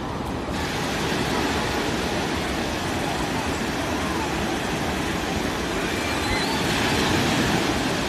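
Steady rush of small surf waves breaking along a shallow beach, with the voices of a crowd of bathers calling and chattering in the background.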